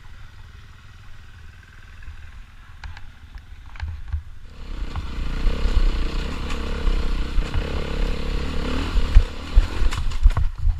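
Enduro motorcycle engine climbing a rocky creek bed, coming in loud about halfway through and running hard with a wavering pitch. A few sharp knocks near the end.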